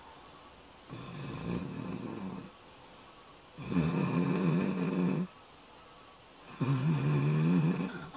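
A person snoring: three long snores about three seconds apart, the second and third louder than the first.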